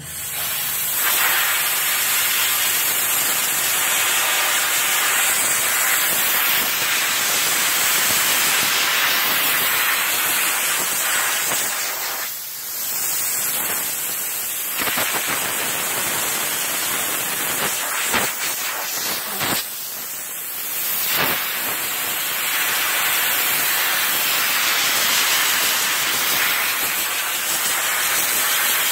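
Loud steady hiss of a pressurised jet blasting from a hand-held hose valve and nozzle, eased off briefly twice, about 12 seconds in and again about 20 seconds in.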